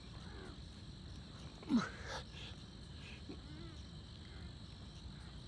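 A man's short grunting exhale, falling in pitch, about a second and a half in as he strains through a push-up, with a couple of fainter breath sounds around it. Crickets keep up a steady high tone behind.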